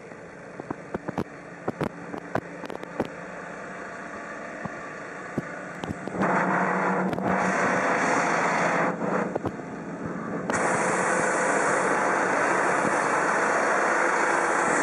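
Diesel engine of a Manitou MRT 2540 rotating telehandler running at idle, with scattered sharp clicks over the first few seconds. About six seconds in it becomes much louder and steady, as under throttle. It drops back briefly near nine seconds, then rises again with added hiss about ten and a half seconds in.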